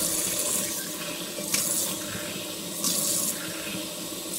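Kitchen tap running into a sink while a squid is scrubbed and rinsed under the stream. The splashing gets louder twice as the squid is worked under the water.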